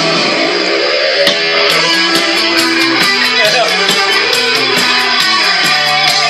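Rock band's instrumental break: a lead electric guitar bending and sliding over held guitar chords, with bass and regular cymbal hits from the drums.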